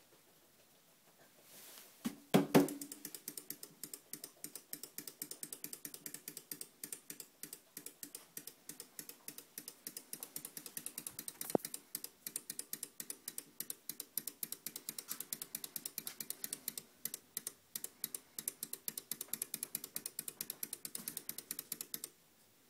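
Clockwork spring motor of a wind-up doll running: a fast, even train of mechanical clicks. It starts with a louder clatter a couple of seconds in and stops suddenly near the end, as the spring runs down.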